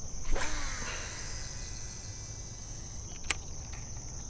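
A cast with a Shimano Antares DC baitcasting reel: a swish, then the spool whirring as line pays out, its pitch falling over about half a second. A sharp click about three seconds in. Crickets buzz steadily throughout.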